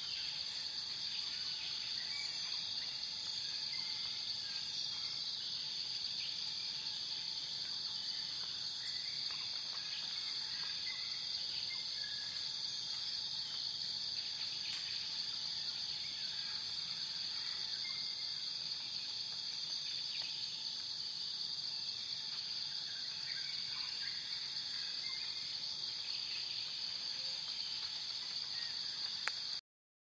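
Steady high-pitched insect chorus, like crickets, with faint short chirps scattered through it; it cuts off suddenly just before the end.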